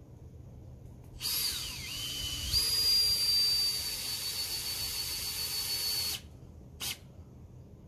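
Power drill running for about five seconds, likely driving a screw into the wooden fence frame. Its motor whine drops in pitch as it takes load, then steps up and holds steady, and it cuts off suddenly. A short second burst of the trigger follows about a second later.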